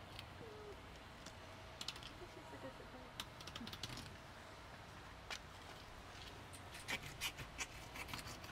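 A 6-inch curved boning knife cutting a mutton snapper fillet along the backbone and over the rib bones, with faint scattered clicks and ticks in small clusters as the blade works over the bones.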